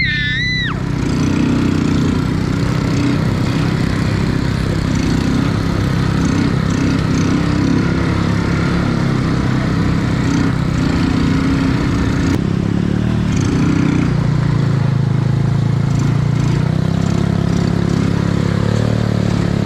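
Quad bike (ATV) engine running while being ridden along a dirt track, its steady note wavering up and down with the throttle.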